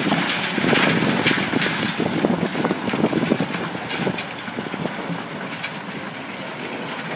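A John Deere tractor's engine running, with irregular rattles and knocks over it, getting quieter after about four seconds.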